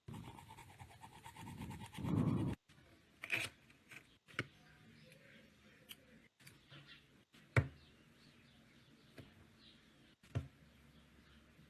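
Faint handling sounds: a short rustle, then scattered light clicks and taps, two of them louder than the rest.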